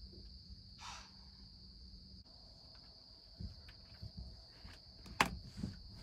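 Steady high-pitched chirring of crickets in a field. About a second in there is a short breathy burst, and a little after five seconds a sharp click.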